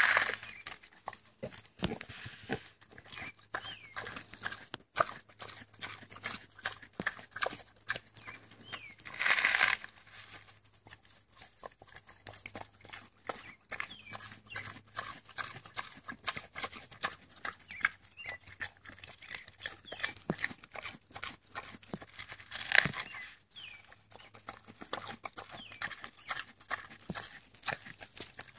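A pig chewing iceberg lettuce, smacking its lips and crunching the leaves in a quick, irregular run of clicks. There are two louder noises, a longer one about nine seconds in and a short one near twenty-three seconds.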